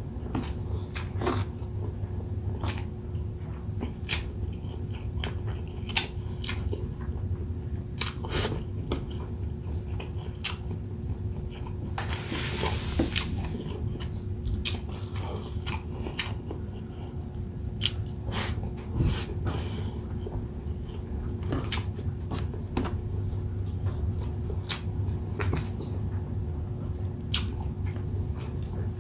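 Close-miked eating of grilled chicken inasal with rice: chewing, biting and wet mouth clicks at an irregular pace, with a brief crunchy, rustly stretch about halfway through. A steady low hum runs underneath.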